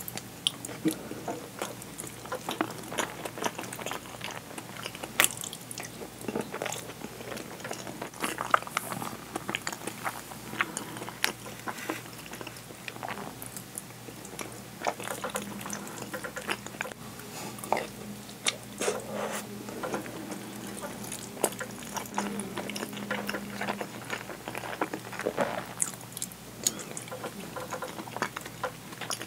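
Close-miked eating of curry and rice: chewing and wet mouth sounds, with a wooden spoon scooping and scraping in the bowl.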